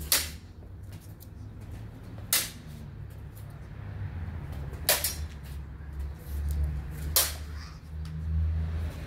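Four sharp clashes of sword blades during sparring, each a single crack about two seconds apart, over a steady low rumble.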